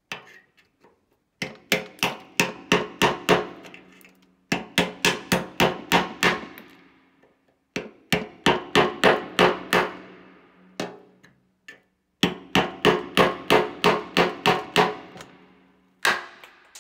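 A screwdriver being hammered into old body filler on a Honda CBR 919RR's steel fuel tank, chipping the filler away from the dents: four quick runs of about eight to ten sharp blows each, about four to five a second, with the hollow tank ringing after the blows.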